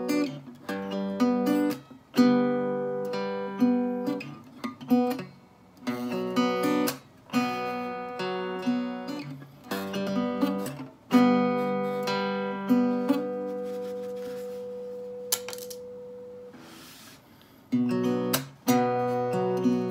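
Small-bodied steel-string acoustic guitar played in a hybrid-picking arpeggio, pick and fingers sounding the chords note by note. Midway one chord is left ringing and dies away over a few seconds, then the picking starts again near the end.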